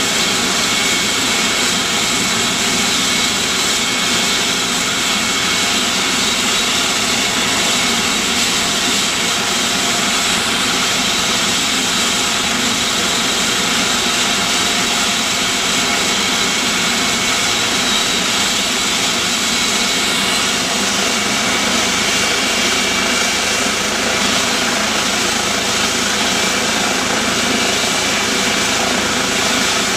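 Eurocopter EC135 air ambulance helicopter running on the ground: a steady turbine whine over an even rush, unchanging in level.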